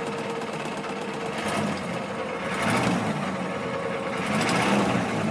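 A 1989 Ford F-450's 460 cubic-inch (7.5 L) V8 running at a steady fast idle of about 1,500 rpm just after a cold start, heard from inside the cab. There are a couple of brief louder swells about halfway through and near the end.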